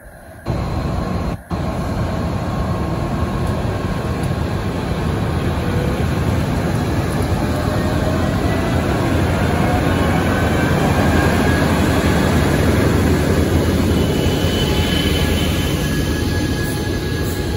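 Diesel passenger train pulling out past the platform. A Siemens Charger locomotive and bilevel coaches make a steady rumble of engine and wheels that grows louder as the locomotive passes, with faint rising whines as the train picks up speed. The sound cuts out briefly twice near the start.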